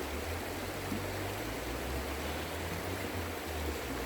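A creek running steadily, an even rushing of water with no breaks.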